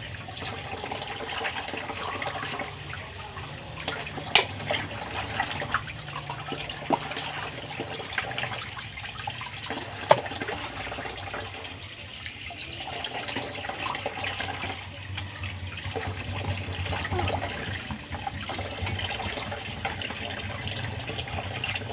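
Tap water running into an aluminium basin while hands rub and rinse raw duck pieces, with a few sharp clicks against the basin, the loudest about four and ten seconds in.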